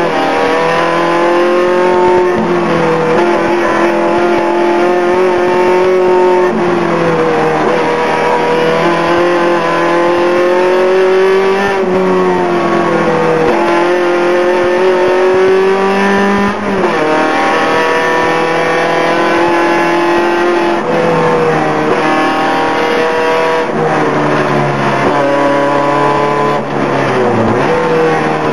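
Škoda 130 Maxi race car's rear-mounted four-cylinder engine under hard acceleration, heard from inside the cockpit: the pitch climbs and sags as the driver works through the bends, with sudden drops at gear changes about 16 seconds in and again near the end.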